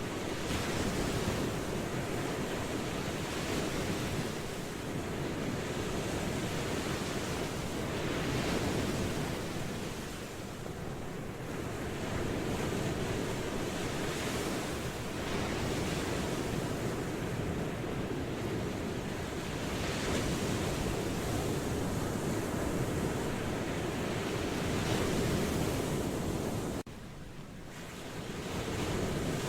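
Ocean waves washing in, a steady rushing surf that swells and eases every few seconds. Near the end the sound drops abruptly, then builds back up.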